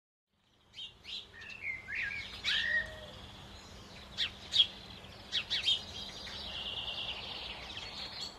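Birds chirping and calling: short whistled notes, some sliding up or down, then sharp chip notes in the middle and a fast trill towards the end, over a faint steady hum.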